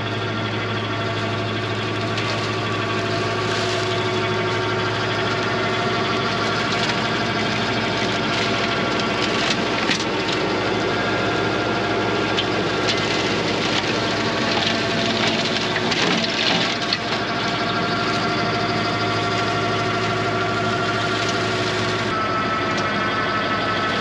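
TYM 574 tractor's diesel engine running steadily under load while its PTO-driven flail mower shreds thick grass, weeds and bark. A few sharp knocks and clatters come through about halfway in.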